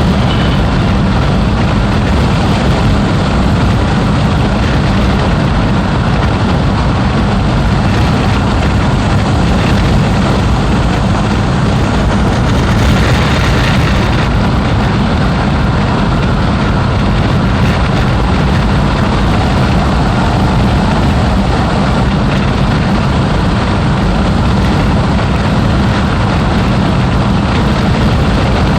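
Mazdaspeed6 2.3-litre turbocharged engine and road noise while driving, a loud, steady rumble. There is a brief rise in hiss about halfway through.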